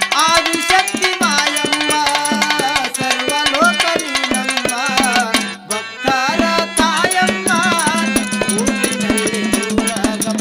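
Instrumental passage of a Kannada devotional bhajan song: quick, even drumming under a melody line that bends and slides in pitch, with a short dip about five and a half seconds in.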